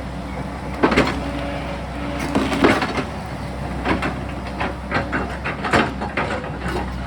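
Sany excavator's diesel engine running steadily while the bucket works against rock and soil, giving a series of irregular sharp clanks and knocks, the loudest about a second in and again near the three-second mark.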